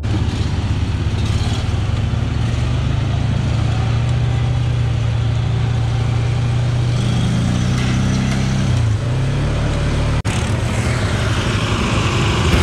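Off-road riding mower's engine running hard and steady, its pitch rising about seven seconds in and dropping back about two seconds later.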